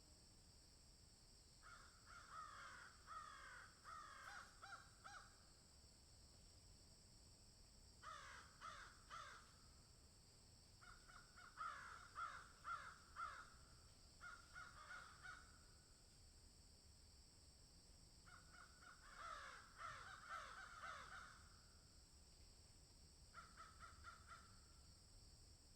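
Birds calling in several bouts of rapid, rasping calls, each a second to a few seconds long, over a steady high hiss.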